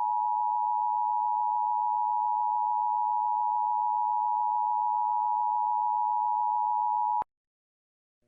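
Emergency Alert System attention signal: two steady tones of 853 and 960 Hz sounding together, cut off suddenly about seven seconds in. It marks the start of a required monthly test of the alert system.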